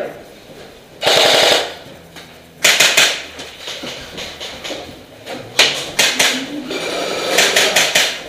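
Airsoft guns firing several short bursts of rapid automatic fire, the shots snapping and echoing inside a small wooden room.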